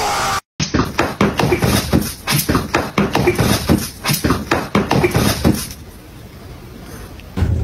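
A cat's loud yowl cut off short, then two cats fighting: a fast run of short, harsh animal sounds, about four a second, for some five seconds before it dies down.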